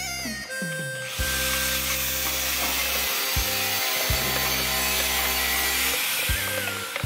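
Background music with low sustained notes, over a continuous scraping, rattling noise of mortar work that starts about a second in and stops near the end: a shovel working wet mortar and a loaded steel wheelbarrow rolling across plastic sheeting.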